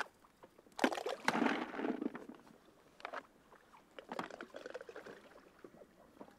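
Water splashing and sloshing at the side of an inflatable boat in a few irregular bursts, the biggest about a second in.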